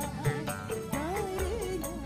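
Background music: a song with a wavering melody over a steady beat and deep bass hits.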